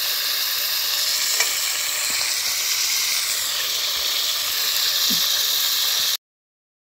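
Food sizzling in a covered wok-style pan over a wood fire, a steady frying hiss with a faint click or two; it cuts off abruptly about six seconds in.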